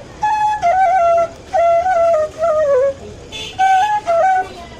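Bamboo flute (bansuri) playing a melody in short phrases, with quick turns and slides between notes and brief pauses for breath.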